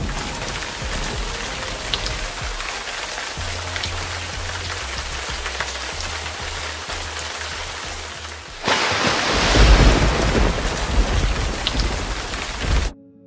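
Flowing river water, a steady rushing hiss. About nine seconds in it turns suddenly louder with a low rumble, and it cuts off abruptly just before the end.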